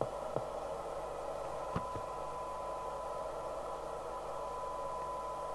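Handheld CB radio's speaker giving a steady receiver hiss, with a click just after the start and another about two seconds in, when a steady 1 kHz tone comes up and holds: the set receiving the test signal with its 1 kHz modulation on channel 20 during receiver alignment.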